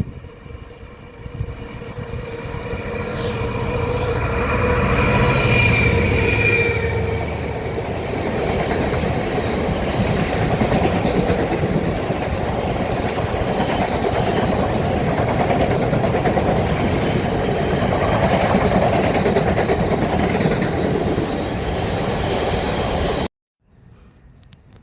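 A train passing close by. It builds over the first few seconds, with a few steady tones early on, then runs as a steady rumble of wheels on rail until it cuts off suddenly near the end.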